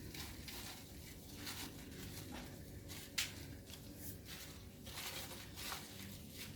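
Faint crackly rustling and light clattering of crisp fried potato chips being seasoned with chicken salt and tossed, with one sharp click about three seconds in.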